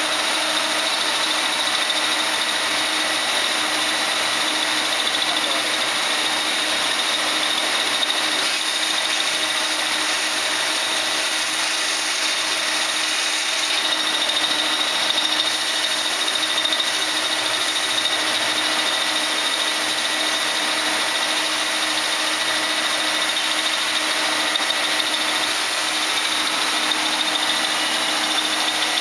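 Large lathe running with a boring bar cutting the bore of a freshly poured Babbitt stern tube bearing: a steady machine drone with a thin, high, constant whine.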